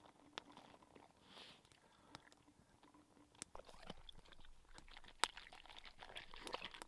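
A dog chewing and crunching water-soaked kibble from a fabric bowl, a quick run of small crunches starting about halfway through, after faint water poured into the bowl at the start.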